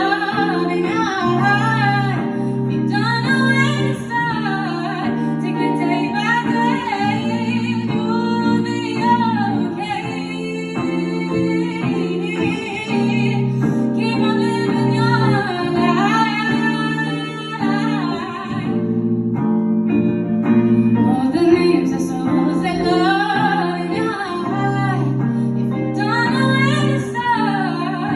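A woman singing a slow song over guitar accompaniment; the voice stops for a couple of seconds about two-thirds of the way through while the guitar keeps playing, then comes back in.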